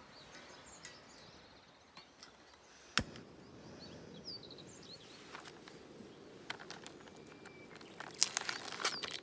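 Outdoor ambience with small birds chirping over a steady low hiss. A single sharp click comes about three seconds in, and a cluster of clicks and rustles comes near the end.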